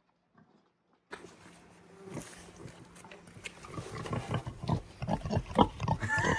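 Pig eating its feed: quick, wet chewing and smacking strokes, several a second, starting about a second in and growing louder.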